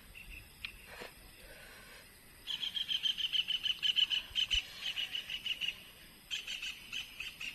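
A wild animal's high chirping trill, a fast even run of about seven pulses a second, starting about two and a half seconds in, breaking off briefly, then starting again.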